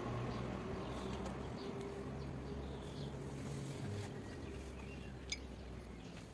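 Outdoor ambience: faint bird chirps over a low steady hum, with a single small clink about five seconds in.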